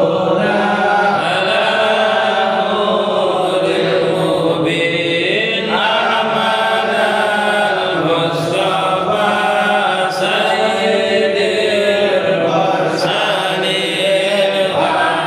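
Men's voices chanting Arabic shalawat, a melodic devotional chant in long held notes. The phrases run a few seconds each, with short breaks between them.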